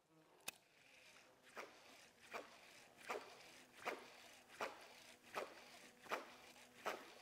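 Fishing reel and rod working a lure: short rasping strokes of line being reeled in with each twitch of the rod, repeating steadily about once every three-quarters of a second.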